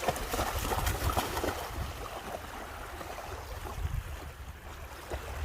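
Water splashing and sloshing, busiest in the first two seconds and then quieter, over a steady low wind rumble on the microphone.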